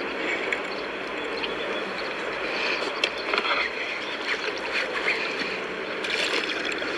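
Water splashing as a hooked crappie thrashes at the surface beside a small pontoon kick boat. Short splashes and knocks come mostly in the middle and latter part, over a steady rushing background.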